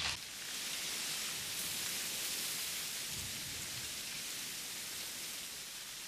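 A steady, even hiss of outdoor ambient noise.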